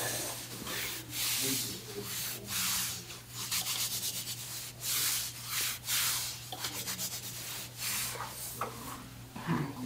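Hands rubbing over a person's back or clothing in massage strokes: a dozen or so short, uneven rubbing hisses.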